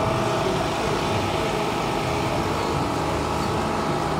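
An engine idling, giving a steady, even hum.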